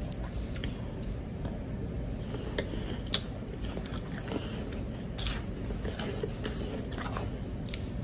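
Close-up crunching and chewing of powdery blended ice, with irregular crisp crackles as the bites break up.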